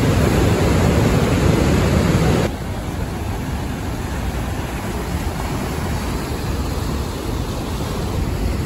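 Steady rushing of the water at Niagara Falls, a dense noise that drops suddenly to a lower level about two and a half seconds in.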